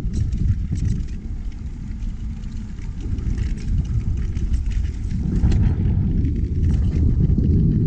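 Mountain bike riding downhill, heard through a body-mounted action camera: a low rumble of wind and tyre noise with scattered clicks and clatter from the bike. It grows louder about halfway through as the tyres roll onto wooden boardwalk slats.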